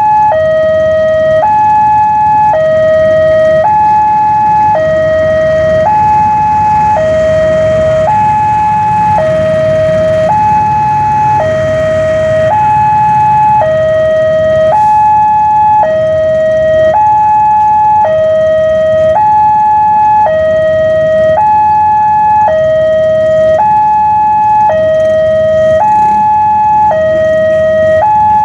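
Level-crossing warning alarm sounding continuously, an electronic two-tone that alternates between a high and a low note about once a second. Under it is the low rumble of a passenger train passing over the crossing.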